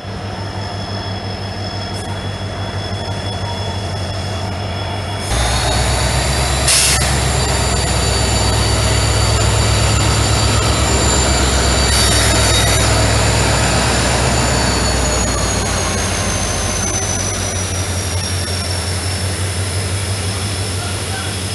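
WDP4D diesel locomotive hauling a passenger train past: a deep engine drone that jumps louder about five seconds in and eases as the coaches follow, with high-pitched wheel squeal over it that slides down in pitch near the end. One sharp clack sounds a little after the engine gets louder.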